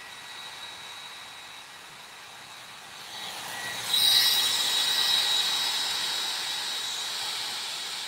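Revlon hair dryer running steadily, blowing over freshly brushed chalk paint to dry it: a rushing hiss with a faint high whine, which gets much louder about halfway through.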